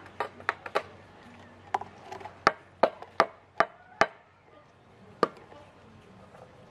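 A paintbrush being worked against a concrete flower pot and a plastic paint bowl: about a dozen sharp taps in irregular clusters, the loudest near the middle, then one last tap a little later.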